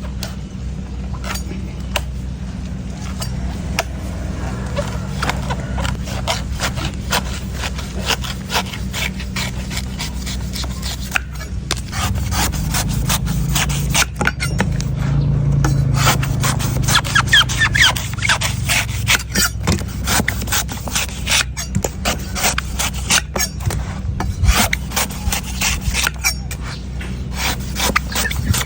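Knife scraping and shaving a coconut in a dense run of quick rasping strokes.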